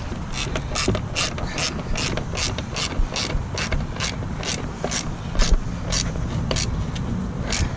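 Husky 3/8-inch drive, 100-position ratchet clicking as its handle swings back and forth to tighten a carriage bolt on a snow plow blade. The fine clicks come in a steady rhythm, about two or three a second.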